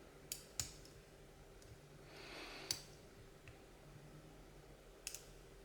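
Faint, sparse clicks of a lock pick and tension wrench working the pins of a Mul-T-Lock classic-core padlock: two ticks near the start, one just before the middle after a soft brushing sound, and a quick pair near the end.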